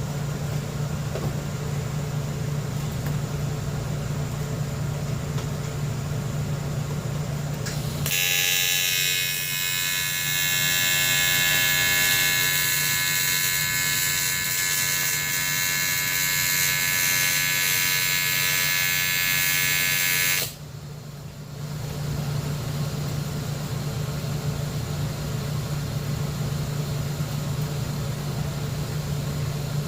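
AC TIG welding arc on the aluminium swingarm: after a steady machine hum, an arc starts about eight seconds in, makes a loud buzzing hiss for about twelve seconds, and cuts off suddenly. The hum then carries on.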